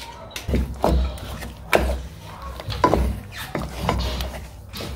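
Wooden spoon stirring chicken pieces through a thick wet marinade in a metal pot, with irregular knocks and scrapes against the pot.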